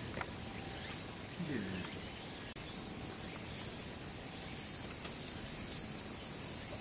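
Insects singing in a steady, high-pitched drone that jumps louder about two and a half seconds in.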